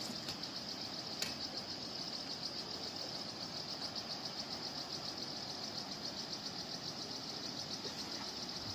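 Steady, high-pitched insect chorus from the forest, buzzing with a fast pulse, with one sharp click about a second in.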